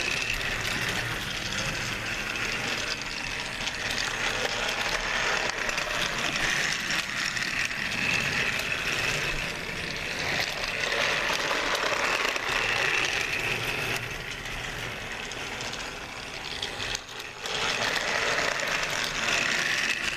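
Battery-powered motorized Talking Nia toy train engine running along plastic track: a steady geared-motor whir with the clatter of its wheels on the track, briefly dropping away near the end before picking up again.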